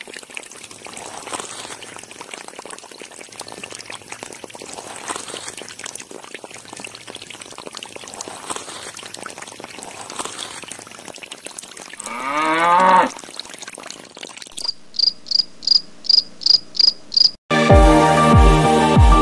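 Water trickling and splashing from a small pump's tube into a muddy channel. Later comes a short tone rising in pitch, then a quick run of high beeps at about three a second. Near the end, electronic music with a heavy beat cuts in.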